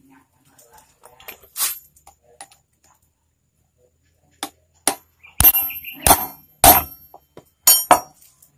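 Sharp metal-on-metal knocks with a short ring, about half a dozen in the second half, as a ball bearing is pressed onto a power-sprayer shaft with a socket tool. A lighter clink comes early on.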